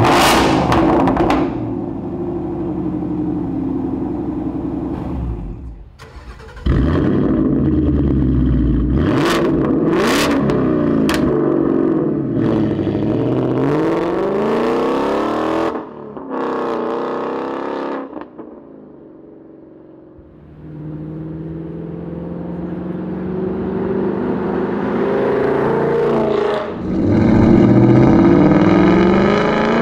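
Ford Mustang GT's 5.0-litre V8 through a Borla ATAK stainless cat-back exhaust, loud and raspy. It revs repeatedly, with the pitch sweeping up and down and a few sharp cracks. It then drives off and comes back up loud under acceleration near the end.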